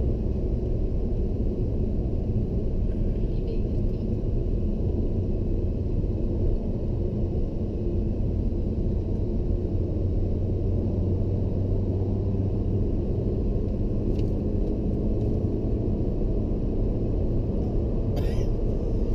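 Steady low rumble of a car cruising at motorway speed, heard from inside the cabin: road and engine noise. A brief hiss near the end comes as the car passes a lorry.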